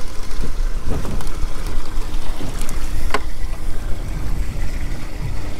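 Wind buffeting the microphone over open sea, a constant low rumble with the wash of water around a small boat. A single sharp click about three seconds in.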